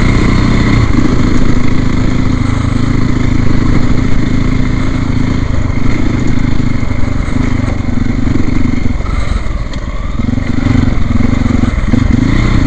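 Trail motorcycle engine running steadily under load while ridden along a thin wet rut, easing off briefly about ten seconds in before pulling again.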